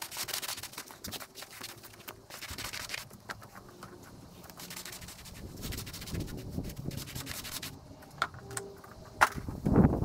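Stiff-bristled brush scrubbing over patio slabs, working sodium hypochlorite in by hand. The scrubbing stops a couple of seconds before the end, followed by a few sharp knocks.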